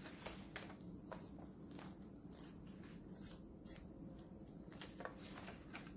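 Paper pages of a ring-bound handmade journal being turned by hand: several short, soft rustles and light taps over a faint low hum.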